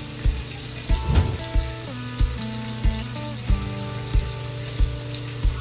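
Background music with a steady beat, about one and a half beats a second, over a sizzle of bananas frying in butter and brown sugar.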